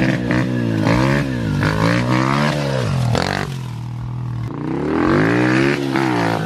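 Small motorcycle engine revving up and falling back several times, with a steadier, lower-pitched stretch near the middle.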